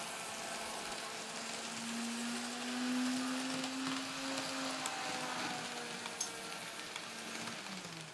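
N-scale Kato AC4400CW model locomotive running: a steady motor whine over the hiss of small wheels rolling on track. The whine rises a little about halfway through, then its pitch drops near the end.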